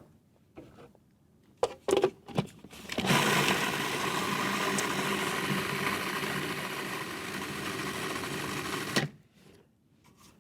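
A few knocks, then an electric blender motor running steadily for about six seconds as it blends hummus, stopping abruptly near the end.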